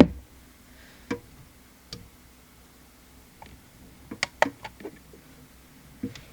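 Nail-art supplies being handled on a work surface, giving scattered sharp clicks and taps of small hard objects. The first click is the loudest, and a quick cluster of them comes about four seconds in.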